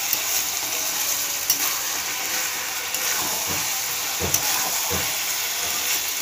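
Fish and fried aubergine sizzling in a metal wok, a steady frying hiss, with a utensil clicking and knocking against the pan a few times.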